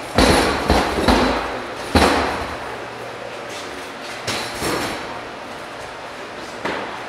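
Metal hook ladders and climbers' feet clanking and knocking against a wooden training wall, a series of sharp strikes that ring on and echo in a large hall. The heaviest knocks come in the first two seconds, with lighter ones after.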